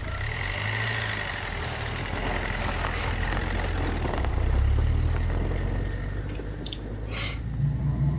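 Street-ambience sound effect of a person walking along a street: steady traffic noise with engines running, swelling about halfway through, and a few faint short clicks. The effect is long, which holds up the synthesised dialogue.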